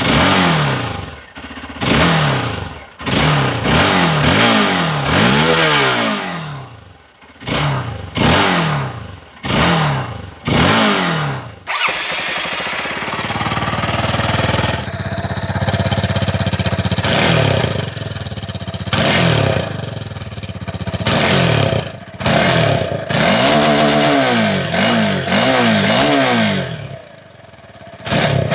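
Single-cylinder dual-sport motorcycle engine on its stock exhaust, blipped over and over in short throttle revs, each rising and falling in pitch within about a second. It settles into steady running for a few seconds near the middle, then is revved again in a run of blips before dropping back near the end.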